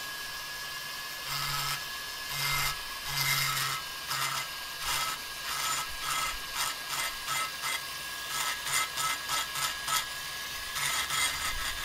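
A high-speed rotary tool runs with a steady high whine while its bit grinds and smooths the aluminium of a motorcycle cylinder head's intake port in short, repeated scraping passes. The passes come faster toward the end.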